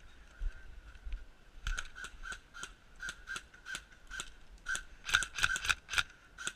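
Airsoft guns firing single shots, each a sharp mechanical clack, several a second from about two seconds in, coming faster and thicker between about five and six seconds in.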